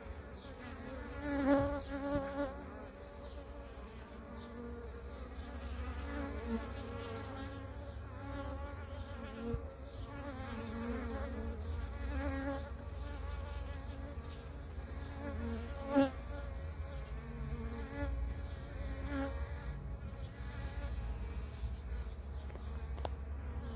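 Honeybee workers buzzing in a dense cluster on the hive top, a steady, wavering drone that swells and fades as bees shift and fly close. A single sharp click about two-thirds of the way through.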